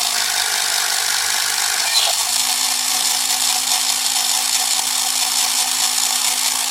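Battery-powered toy robot's small electric motor and gears whirring steadily, with a faint tick about two seconds in.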